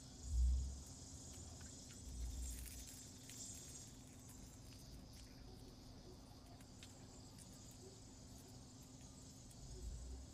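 Insects chirring steadily in a high-pitched chorus, with a few low thumps: a strong one just after the start, a weaker one about two seconds in and another near the end.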